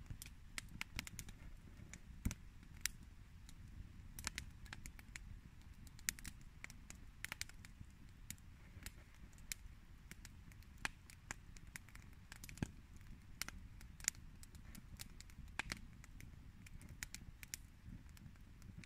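Wood campfire crackling, with irregular sharp pops and snaps over a low steady rumble.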